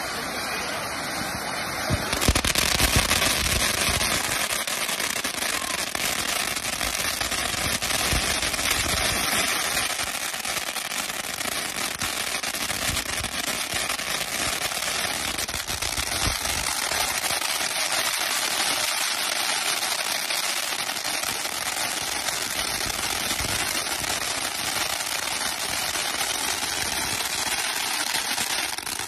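Ground firework fountain spraying sparks with a dense, rapid crackling that goes on without a break, growing louder about two seconds in.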